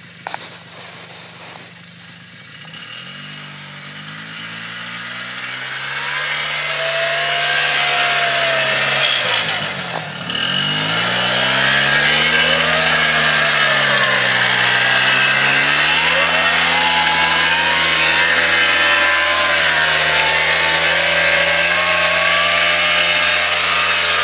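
ATV engine running as the quad is ridden through snow. Its pitch rises and falls with the throttle. It grows louder over the first dozen seconds as the quad comes close, eases off briefly about ten seconds in, then revs up again and stays loud.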